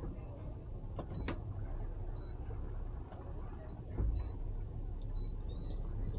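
Boat engine idling with a steady low rumble while the boat creeps along at slow speed. A few short high tones sound about a second apart, and there is a dull thump about two-thirds of the way through.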